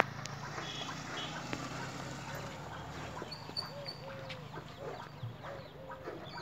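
Hand-milking of a cow: short, sharp squirts of milk hitting a steel pail, with birds chirping and calling over them.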